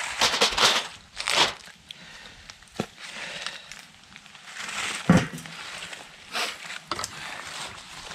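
Crinkling and rustling handling noises with a few sharp knocks, the loudest about five seconds in.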